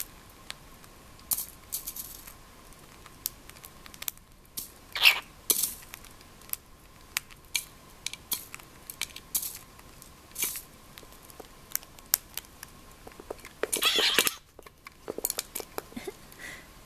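Cockatiel pecking at pellets in a clear plastic food dish: quick irregular clicks and taps of beak on plastic and pellets, with a louder scratchy burst of noise near the end.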